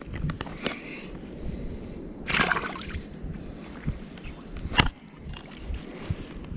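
Shallow water sloshing and lapping around a wading angler's hands as he releases a fish, over light wind on the microphone. A short splashy rush comes about two and a half seconds in, and a single sharp click near five seconds.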